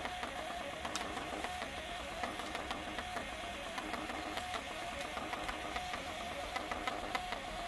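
Ballot tabulator's built-in printer running as it feeds out the election results tape: a steady mechanical whir with a tone and many small clicks.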